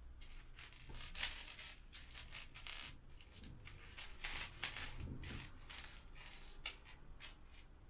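Small plastic Lego pieces clicking and clattering irregularly as a hand rummages through a pile of loose bricks, searching for a part.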